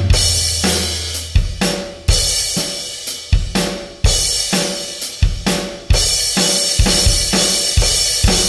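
Background music carried by a drum kit playing a steady groove of kick, snare and cymbal hits.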